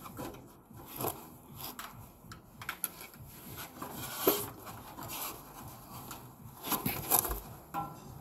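Gloved hands working inside the open lower compartment of a heat pump water heater: irregular scrapes, rustles and small clicks of parts and wiring being handled, with a few sharper knocks.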